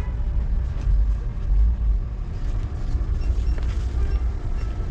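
Steady low rumble of a motor vehicle on the move.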